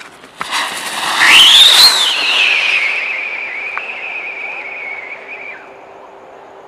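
Sunrise whistling Diwali rocket taking off: a short fizz of the fuse, then a loud rush of thrust about half a second in. A shrill whistle sweeps sharply up, drops back and holds steady as the rocket climbs, fading and stopping about five and a half seconds in.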